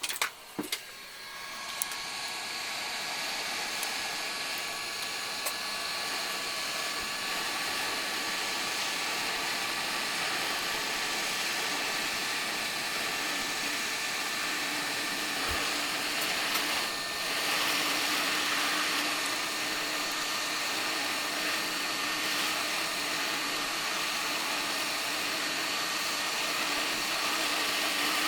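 Hot air rework station's blower running steadily, with a faint whine over the rushing air, as the chip is heated at 400 degrees for removal. A few clicks come just as it starts.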